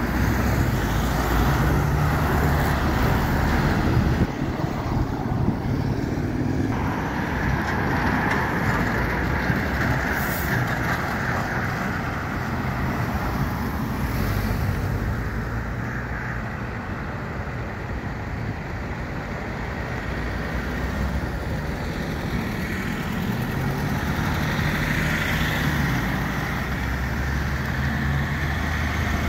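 Road traffic at an intersection: cars passing and heavy trucks' engines running. A deep engine drone is strongest at the start and again near the end.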